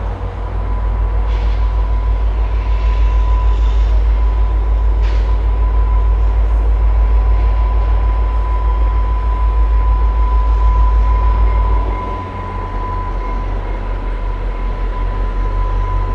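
VIA Rail diesel passenger locomotives running as they approach with a passenger train, under heavy wind rumble on the microphone that eases about twelve seconds in.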